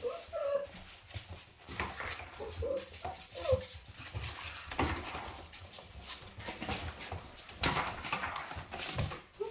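Five-week-old Labrador puppies whimpering in short, high, wavering calls, a cluster near the start and another about three seconds in, with bursts of scuffling noise between them as the litter moves about.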